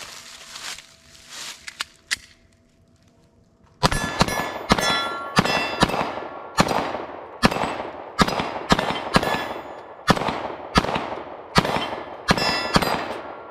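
Glock 19 Gen 5 9mm pistol fired in a rapid string of more than a dozen shots, starting about four seconds in, each shot followed by the ring of a hit steel target. A few seconds of faint handling with a single sharp click come before the first shot.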